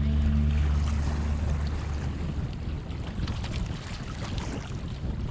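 Wind buffeting the microphone over water sounds around a canoe on a river. A music track fades out in the first second or two.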